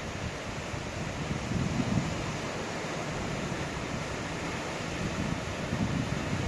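Ocean surf washing steadily under a constant hiss of wind, with wind buffeting the microphone in low gusts about two seconds in and again near the end.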